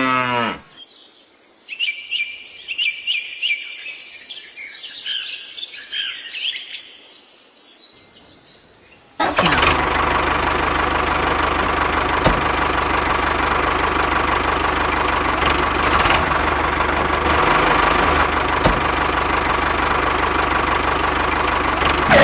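Birds chirping for several seconds, then, about nine seconds in, a steady tractor engine running sound starts abruptly and runs on with an even hum and a constant tone.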